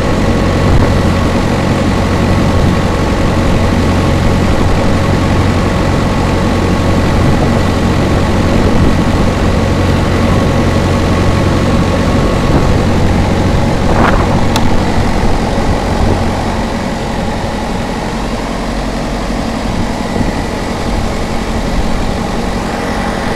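Carrier refrigeration unit's four-cylinder diesel engine running steadily. About two-thirds of the way through there is a brief sharp sound, and after it the running gets slightly quieter.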